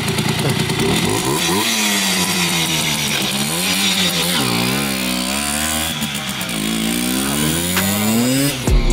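Simson moped's two-stroke single-cylinder engine being ridden, revving up and down repeatedly with its pitch rising and falling every second or two. It cuts off suddenly near the end.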